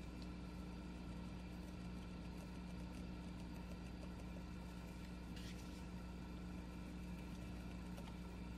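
Quiet steady low electrical hum of room tone, with one faint brief scratch about five and a half seconds in from a fountain pen's steel nib dragging across paper as it writes in glue.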